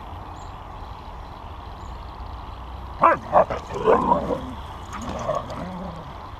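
Siberian husky barking twice in quick succession about three seconds in, then yipping and grumbling vocalisations as the dogs play.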